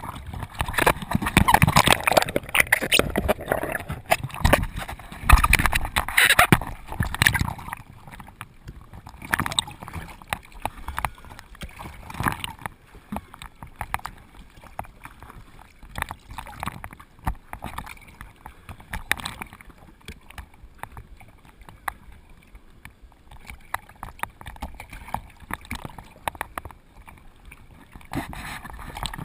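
Ocean surf and water splashing and sloshing. The rush of water is loudest for the first seven or eight seconds, then it settles to quieter water noise with scattered splashes and knocks.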